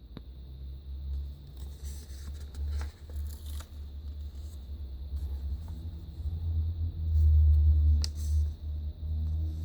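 Magazine pages being handled and turned, with paper rustles and small clicks, over a low rumble that swells loudest about seven seconds in.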